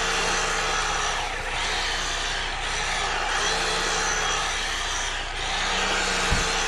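EGO POWER+ power head running its bristle brush attachment, the spinning bristles sweeping through the thatch of a dormant lawn. The motor and brush noise swells and eases slightly as the brush is swept across the grass, with a brief low knock near the end.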